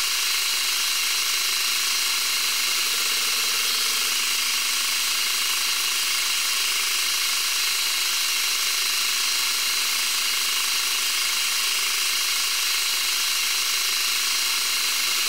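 Metal lathe turning a steel bar, the cutting tool taking a steady pass along it: an even, high-pitched hiss of the cut over the machine's running, unchanging throughout.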